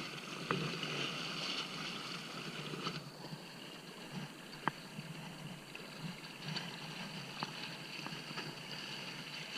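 Steady wash of water and wind at the shoreline, with a few isolated sharp ticks.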